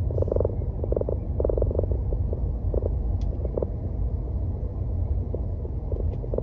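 A car being driven, heard from on board: a steady low rumble of road and engine noise, with short bursts of fast rattling buzz that come and go about once a second.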